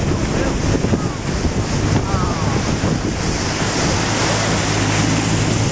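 Wind buffeting the microphone and the rush of churning wake water behind a motorboat under way, with the boat's engine giving a steady low drone underneath that becomes stronger after about three and a half seconds.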